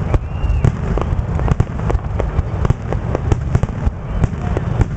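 Fireworks grand finale: a rapid barrage of aerial shell bursts, several sharp bangs a second over a continuous low rumble.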